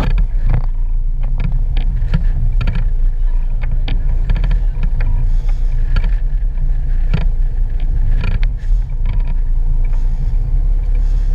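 Steady low rumble of the sport-fishing boat's engines and wind on the microphone, with scattered short clicks and knocks.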